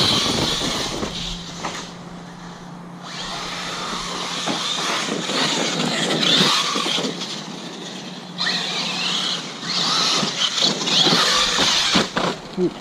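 Arrma Kraton 6S RC truck being driven, its electric motor and drivetrain whining in surges as it speeds up and backs off several times.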